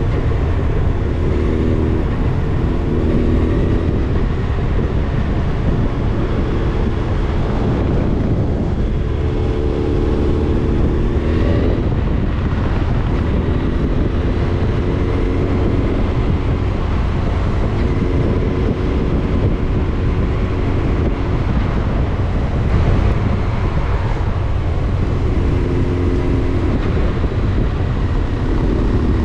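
Motorcycle engine running while riding, its note coming and going in several stretches, over a heavy steady rumble of wind on the microphone.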